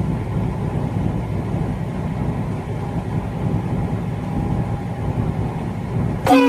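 Semi truck running down the highway, heard from inside the cab as a steady low engine and road drone. Right at the end a brief louder sound with a falling pitch cuts in.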